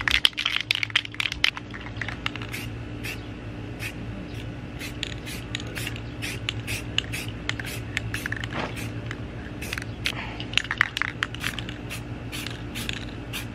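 Aerosol spray paint can spraying in many short bursts, with a steady low hum underneath.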